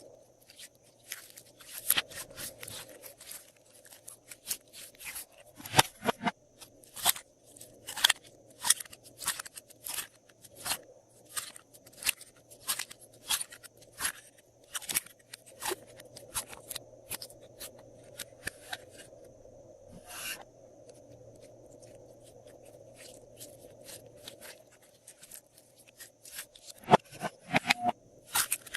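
Glossy slime being worked by hand, giving a run of sharp, sticky clicks and pops, about one or two a second. There are short pauses, and denser clusters of clicks about six seconds in and near the end.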